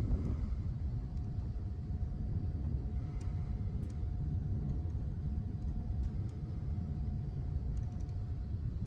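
Steady low rumble of a large car ferry underway, with a faint steady whine that starts about a second in and stops near the end.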